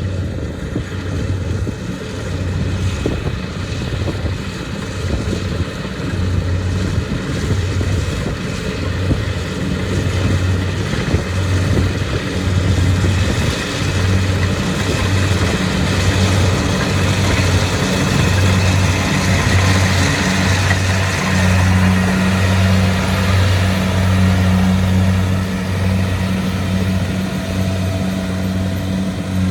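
Kubota DC-70 combine harvester's diesel engine running steadily under working load, a low droning hum that pulses slightly over a broad rushing machine noise, growing a little louder in the second half.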